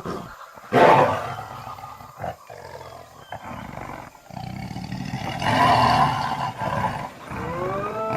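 Tiger roaring and growling. There is a loud roar about a second in and another rise in level about two-thirds of the way through.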